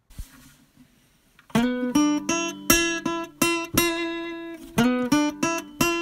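Music: plucked acoustic guitar notes, starting about a second and a half in after a brief quiet stretch.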